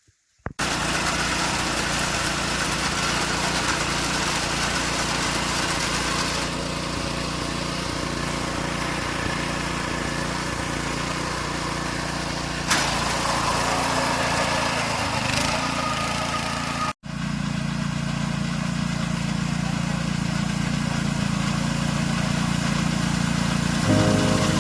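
Engine of a paddy-harvesting machine running steadily, with a brief break about two-thirds of the way through where two shots are joined.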